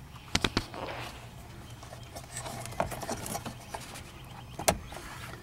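Small plastic clicks and rattles of a wiring-harness connector being worked loose from the back of a Dodge Caravan instrument cluster: a quick run of clicks about half a second in, a few more around three seconds, and one sharp click near the end.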